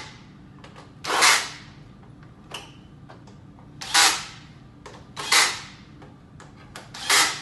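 Cordless drill driving screws into an LED panel's mounting rail in four short bursts, one every one and a half to three seconds, with small clicks in between.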